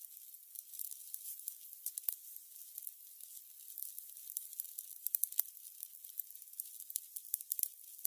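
Burning candles crackling: a soft high hiss with many small irregular pops and ticks.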